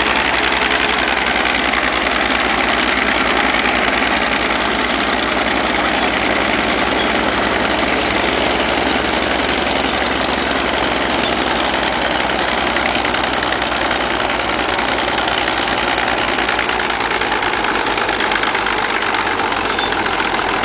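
Antique crawler bulldozer's diesel engine running steadily and loud, with a fast even pulse low down.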